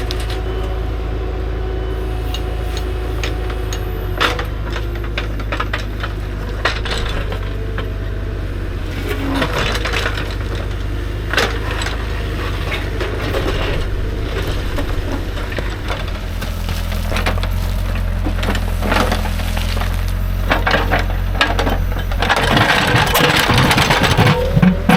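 CAT 305.5 mini excavator's diesel engine running steadily while the bucket scrapes and knocks against rocks and dirt, with scattered clinks and cracks. The knocking gets busier and louder near the end.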